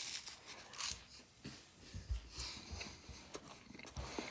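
A person quietly chewing toast spread with jelly: faint soft crunches and mouth sounds, with a short breath about halfway through.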